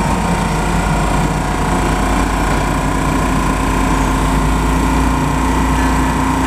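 Stadler GTW diesel multiple unit's engines running steadily beside the platform: an even low drone with a steady higher tone over it.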